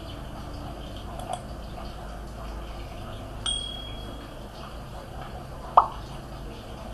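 Subscribe-animation sound effects: a short, bright bell-like ding about halfway through, then a sharp click near the end, over a low steady hum.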